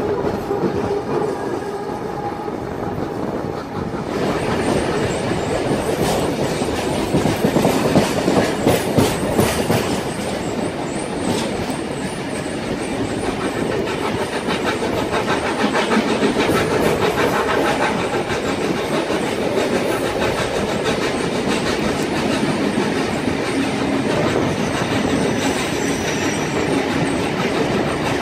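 Heritage steam-hauled passenger train under way, heard from an open carriage window: a steady rumble and rush of the carriage running on the track, with wheels clattering over rail joints and points. The sound grows fuller about four seconds in, and a run of sharp clicks comes between about six and twelve seconds in.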